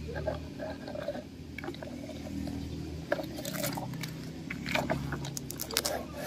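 Irregular crunching, clicking and scraping on dry dirt and dead leaves, busier in the second half, over a faint steady low hum.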